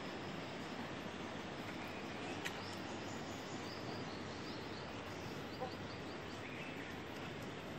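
Faint high bird chirps over a steady outdoor background hiss, with a sharp click about two and a half seconds in.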